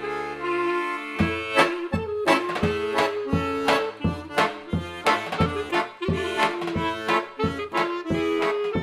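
Klezmer ensemble playing: a held chord, then about a second in a steady oom-pah rhythm starts, low bass notes alternating with chords under the melody.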